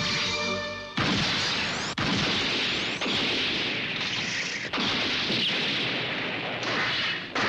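Anime soundtrack sound effects: a string of loud, noisy crashes and blasts, starting about a second in and breaking off abruptly several times.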